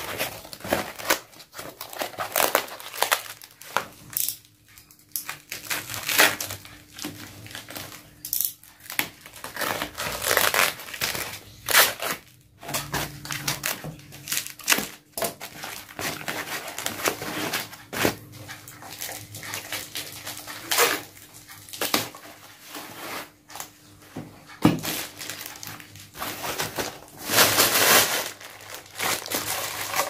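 Plastic film and foam packaging crinkling, rustling and tearing in irregular bursts as it is pulled off and handled.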